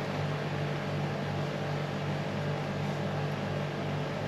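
Steady low mechanical hum with an even hiss over it, like a motor or machine running nearby.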